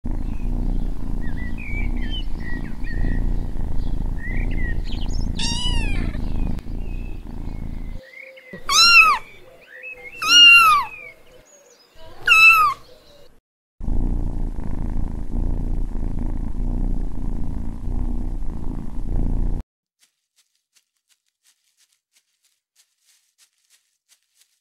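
A kitten purring, with four meows in the middle: one softer, then three loud ones about a second and a half apart. The purring starts again after the meows and stops abruptly about twenty seconds in.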